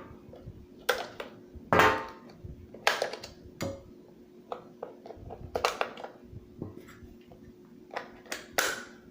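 Batteries being taken out of an animatronic Halloween figure's plastic battery compartment: irregular sharp clicks and knocks of plastic and batteries being handled, the loudest about two seconds in.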